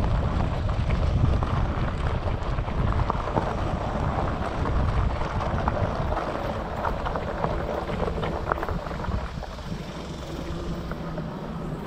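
Wind buffeting the microphone in a steady low rumble, with faint scattered crunches of footsteps on a gravel trail.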